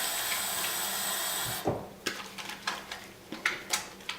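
Water running from a tap, shut off with a knock about a second and a half in, then wet hands working a bar of soap into lather with many small wet clicks.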